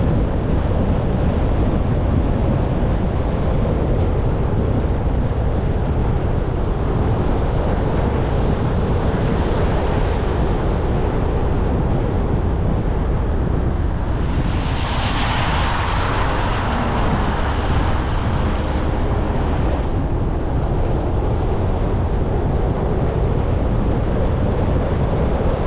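Steady road noise of driving on a wet street in the rain, with the hiss of tyres on wet pavement swelling briefly about ten seconds in and again, louder and longer, around fifteen seconds in, as other vehicles pass.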